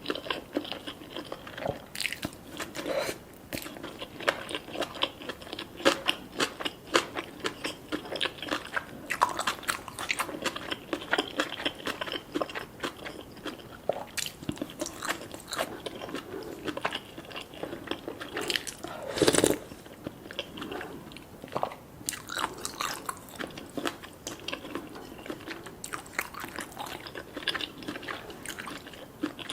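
Close-miked eating: repeated bites and wet chewing with crisp crunchy clicks, and one louder burst about two-thirds of the way through.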